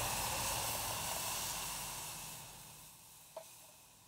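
Water poured onto hot, freshly roasted acorn meal in a camp mug, sizzling and hissing and dying away over about three seconds. A small click comes near the end.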